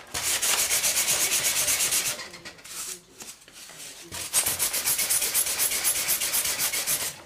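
A piece of foam being sanded level by hand with quick back-and-forth scratchy strokes. There are two bouts, one of about two seconds and one of about three, with a short pause between.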